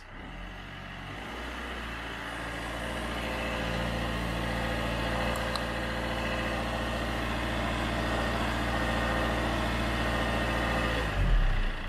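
Car's diesel engine brought up from idle and held at raised revs for an alternator charging test; its pitch and loudness climb over the first few seconds, hold steady, then fall back near the end.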